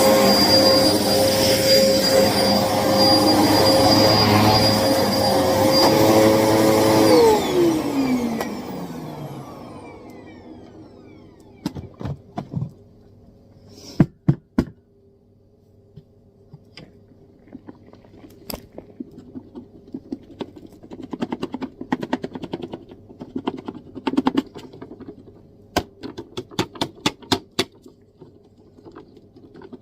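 Hoover vacuum cleaner running, then switched off about seven seconds in, its motor winding down in a falling whine over a couple of seconds; the owner says the vacuum was clogged. Afterwards come scattered clicks and knocks, over a faint steady hum.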